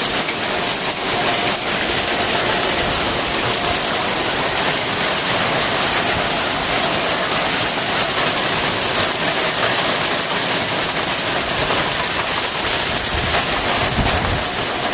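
Heavy rain falling steadily on a corrugated metal roof, a dense, unbroken patter at an even level.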